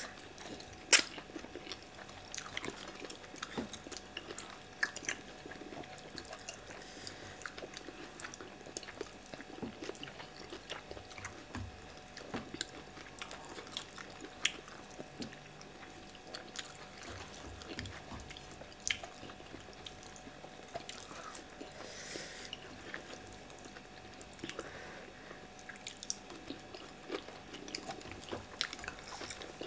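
Chewing and wet mouth clicks from people eating fufu and okra soup by hand, with scattered sharp clicks, the loudest about a second in.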